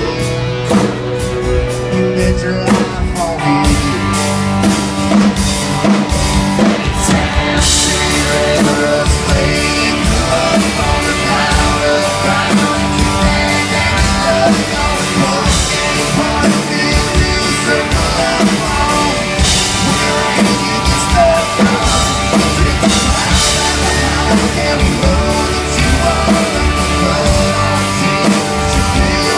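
Country band playing live through a PA: singing over electric guitars and a drum kit keeping a steady beat, with the cymbals and full band filling in about eight seconds in.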